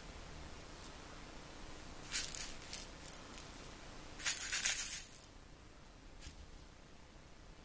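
Small cat toy ball rattling as a kitten bats it with a paw: a brief rattle about two seconds in, then a longer, louder rattle about four seconds in, with a few faint clicks.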